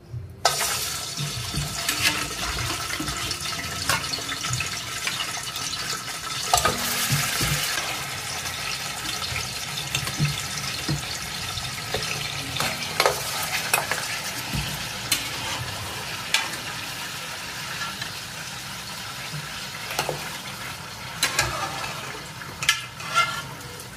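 Boiled trotters (paya) frying in about a cup of hot oil in an aluminium pot: a steady sizzle that starts about half a second in, as the pieces are spooned in. A metal spoon clinks against the pot now and then.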